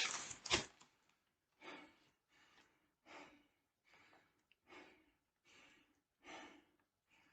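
Faint heavy breathing: a man's breaths out, about one every second and a half, from the effort of lifting heavy chair parts.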